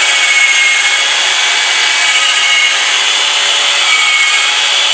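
Electric drill running steadily under load, with a steady whine, as a Time-Sert drill bit bores out a stripped header bolt hole in a 454 big-block Chevy cylinder head.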